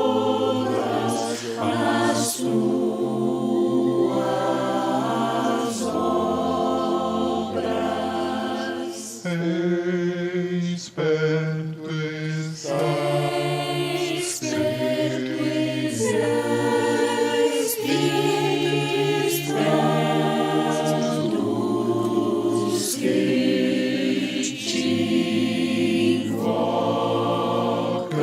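Mixed four-part choir of sopranos, altos, tenors and basses singing a hymn in sustained chords, with short breaths between phrases.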